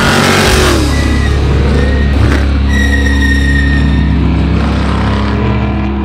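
Off-road race truck engine revving as it passes, its pitch falling in the first second, mixed with loud background music that holds a steady low bass note.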